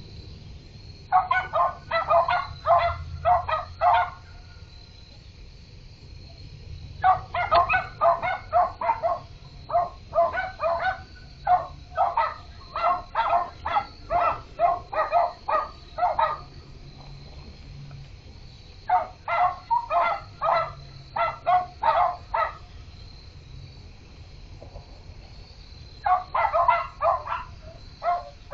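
A dog barking in rapid runs of about three barks a second, four bouts with pauses of a few seconds between them.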